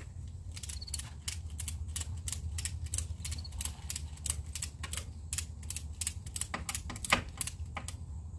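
A run of sharp clicks or taps at uneven spacing, a few a second, over a steady low hum.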